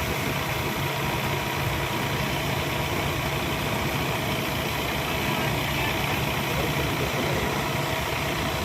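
Tractor-mounted combine harvester's engine running steadily.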